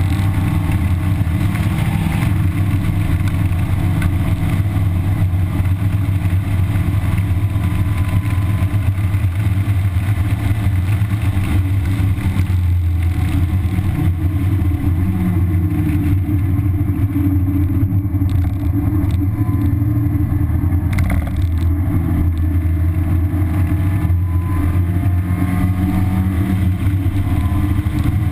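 A 1991 Mazda Miata's 1.6-litre four-cylinder engine with its stock exhaust, running continuously as the car is driven at speed on a race track, heard from inside the cabin along with road and wind noise.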